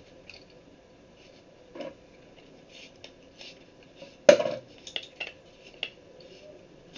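Bicycle hand pump parts being handled and fitted together on a workbench, hard plastic and metal clicking and knocking: a soft knock about two seconds in, a sharp knock a little past four seconds, the loudest, then a few lighter clicks.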